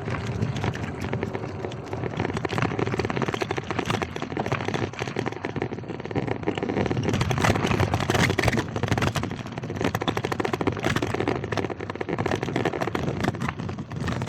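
Gravel bike's wide 44 mm tyres rolling over a loose-stone trail, a dense crunching and crackling of stones under the wheels with rattle from the bumpy surface.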